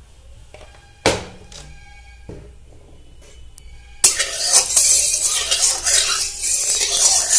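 A sharp knock about a second in, then from about four seconds a steel spatula scraping and stirring hot mustard oil around a metal kadai, a dense rasping scrape of metal on metal.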